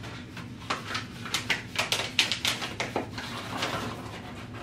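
Paper and a small cardboard box being handled as the test kit is packed: a flurry of quick rustles and light taps through the first three seconds or so, then quieter handling.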